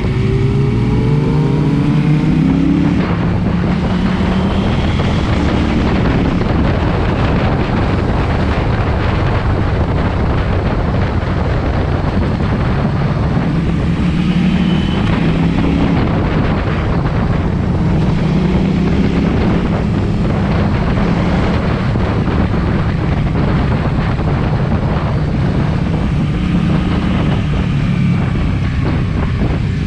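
KTM 790 Duke's parallel-twin engine through an SC-Project aftermarket exhaust, under way, its pitch rising and falling several times with throttle and gear changes, with wind noise on the microphone.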